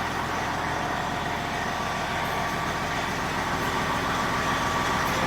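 An engine idling steadily, a constant low hum without change.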